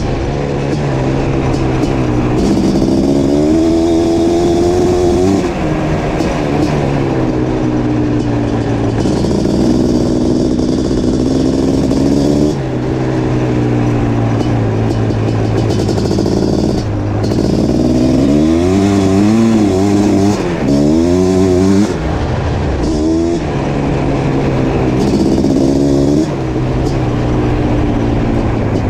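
1987 Suzuki LT500R's 500cc liquid-cooled two-stroke ATV engine under way, revving up and down over and over, with a few short drops in level between pulls.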